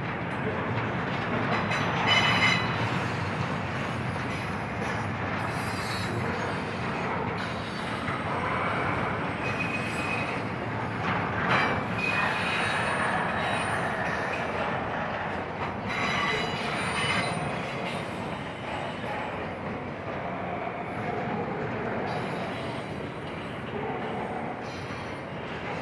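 Union Pacific intermodal freight train rolling past: a steady rumble and rattle of steel wheels and cars on the rail, with short high-pitched wheel squeals breaking in now and then, the flange squeal of wheels taking the curve where the train merges onto the line.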